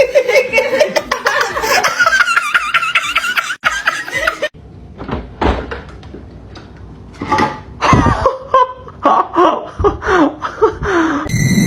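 People laughing, with a few short knocks in the second half.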